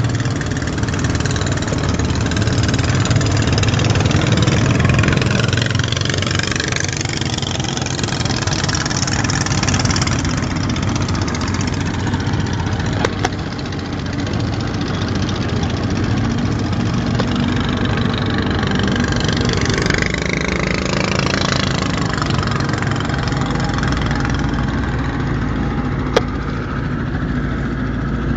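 Small passenger boat's engine running steadily under a continuous rush of water and wind.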